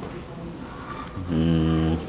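A man's voice holds one steady, drawn-out hesitation sound for under a second near the end, flat in pitch, just before he starts to answer.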